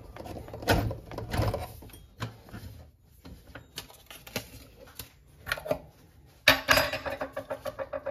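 Irregular knocks, clicks and clatter of hard objects being handled, dense at first and then sparse. About six and a half seconds in, music with a fast, regular pulsing beat starts.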